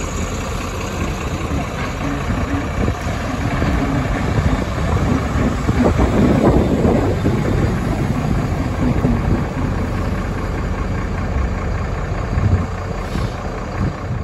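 Vintage electric tram rolling along its street rails: a steady rumble that swells as it passes close, loudest about six to seven seconds in, then eases off.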